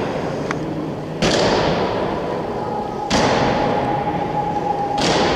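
Honour guard's boots striking a stone floor in a slow ceremonial march, three heavy steps about two seconds apart, each echoing through the large hall.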